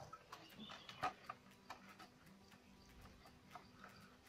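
Faint scattered clicks and crinkles of a thin plastic bottle and twine being handled as a knot is tied around the bottle, over a faint steady hum.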